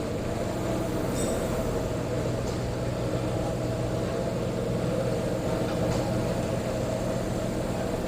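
Hyundai Elantra engine running steadily with a rapid rattling clatter from the timing chain, a noise the mechanic links to a clogged oil strainer starving the chain tensioner.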